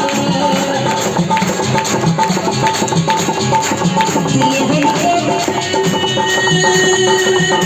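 Instrumental break of South Asian devotional music: a hand-drum rhythm with a short high note repeated about three times a second, and a held higher note joining about six seconds in.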